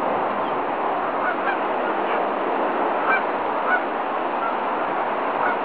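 A flock of Canada geese honking: short scattered calls over a steady hiss.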